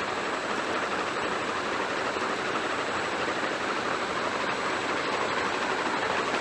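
King of Fans Harbor F series ceiling fan running on high speed, its 52-inch metal blades making a steady rush of moving air.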